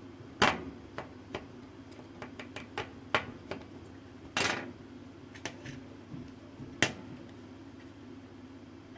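Irregular small clicks and taps of a precision screwdriver on the tiny Phillips screws of a mini smartphone, as a stubborn screw is worked loose, with one slightly longer scrape about four and a half seconds in.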